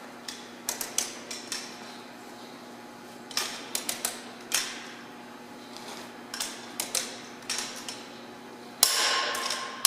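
Lug nuts being retorqued with a wrench: short runs of sharp metallic clicks, then a louder metallic clatter with a brief ring near the end.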